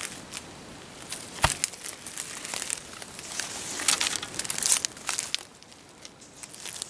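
Footsteps crunching and rustling through dry leaves and brush: irregular crackles, loudest between about three and a half and five seconds in, with one sharp knock about one and a half seconds in.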